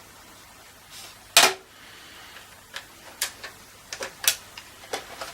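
Small flathead screwdriver prying the bottom plate off a car radio's casing: one loud sharp click about a second and a half in, then a string of lighter clicks and snaps as the plate works loose.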